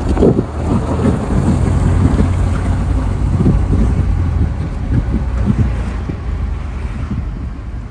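Car on the move: a steady low road rumble with wind buffeting the microphone, easing slightly near the end.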